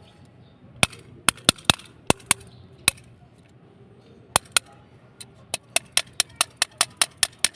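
Sharp clicking taps on a doorbell push-button switch as it is cleaned out of the ants that stopped the bell from ringing. The taps are scattered at first, then from about five and a half seconds in come in a quick, even run of about five a second.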